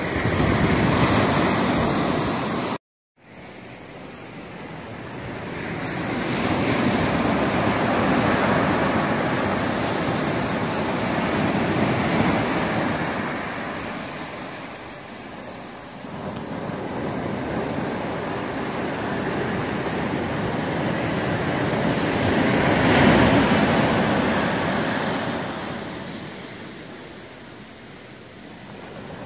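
Rough surf breaking and rushing up a sandy beach, a steady noise that swells and fades as each set of waves comes in and draws back. The sound drops out completely for a split second about three seconds in.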